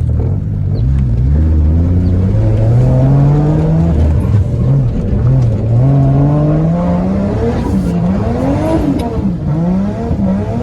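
Car engine accelerating hard, its pitch climbing and dropping at a gear change about four seconds in, then revving up and down several times in quick swings.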